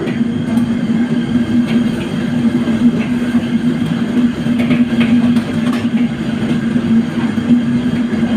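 A steady low machine hum with a few light clicks over it.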